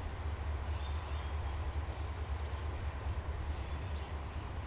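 EL class diesel-electric locomotives running light engine, a steady low rumble as they pull away.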